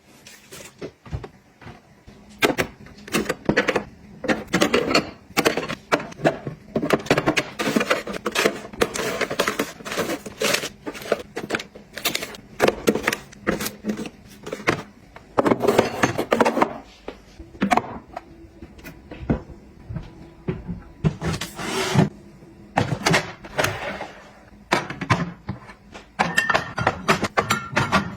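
Hands handling and setting down small household items: an irregular run of clicks, taps and knocks, with a few longer rustling or scraping stretches.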